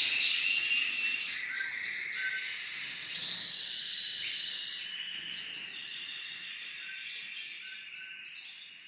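Many small cage birds in an aviary chirping and singing together, a dense run of overlapping twittering trills that fades away gradually toward the end.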